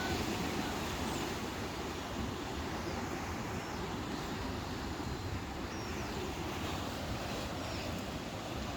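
Steady rushing outdoor noise of wind and sea, with a few faint, short high chirps scattered through.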